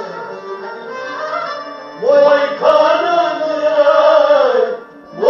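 Kashmiri devotional song (kalam) with instrumental accompaniment. The first two seconds are softer. About two seconds in, a loud sung line begins, held with a wavering pitch, and it breaks off briefly near the end.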